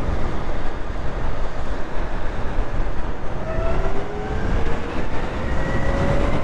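Zero FXE electric motorcycle accelerating: the motor's whine rises in pitch, most clearly in the last few seconds, over a steady rush of wind and tyre noise on a wet road.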